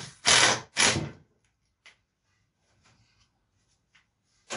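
Cordless drill driving screws into wooden boards in short spurts: three bursts in the first second or so, then a few faint clicks, and another burst starting at the very end.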